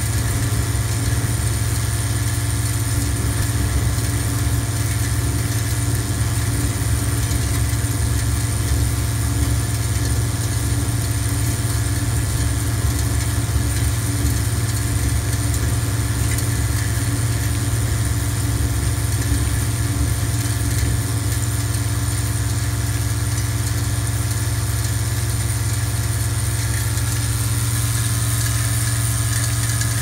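Vibratory bowl feeder running steadily: a constant low electromagnetic hum with the continuous rattle of small plastic Rubik's Cube parts jostling in the stainless steel bowl and up its spiral track.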